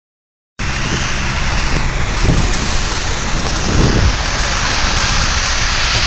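Heavy storm rain and wind beating on a vehicle, heard from inside: a loud, steady rush with a low rumble underneath, starting abruptly about half a second in.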